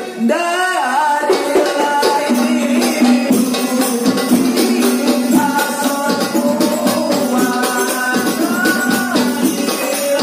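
A man singing a sholawat devotional song into a microphone, backed by hadroh percussion: frame drums and a jingling tambourine keep a steady beat.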